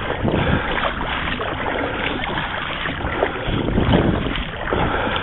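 Steady rushing noise of a small boat on the water, swelling a little about three and a half seconds in.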